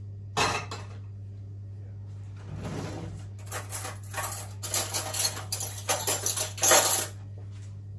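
Kitchen utensils and dishes clinking and scraping: a sharp clatter about half a second in, then a run of clinks and scrapes from about two and a half seconds on, the loudest near the end, over a steady low hum.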